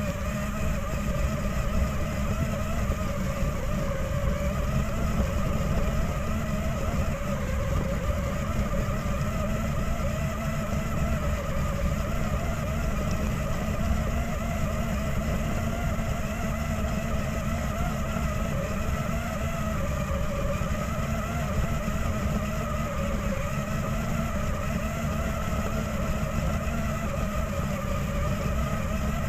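RC car driving over gravel, heard from a camera mounted on it: a steady motor whine whose pitch drifts slightly up and down with speed, over a constant rough rumble from the tyres and chassis on the stones.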